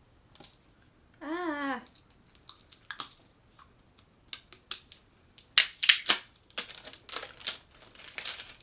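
Plastic wrapping crinkling in a string of sharp rustles as it is handled and pulled off a hand soap bottle, busiest past the middle.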